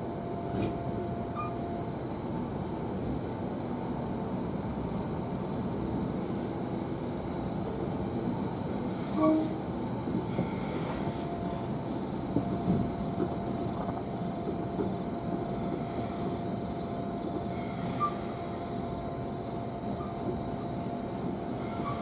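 Steam-hauled passenger coach rolling slowly in reverse on the rails, heard from inside the car: a steady rumble with scattered clicks and a brief louder knock about nine seconds in. A steady high chirping of autumn insects runs underneath.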